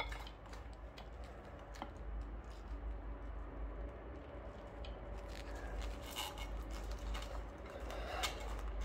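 Gloved hands fishing a wiring cable up through a motorcycle's handlebar and headlight area: scattered small clicks, taps and rustles of the cable and parts being handled, a few sharper clicks about six seconds in and just after eight seconds, over a faint low hum.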